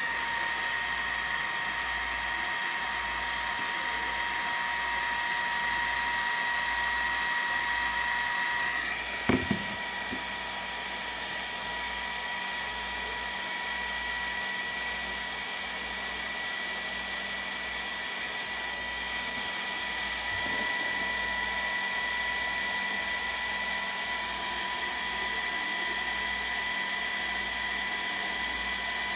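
Small desktop 3D printer running mid-print: a steady whine over an even fan hiss, with a brief knock about nine seconds in, after which it runs a little quieter.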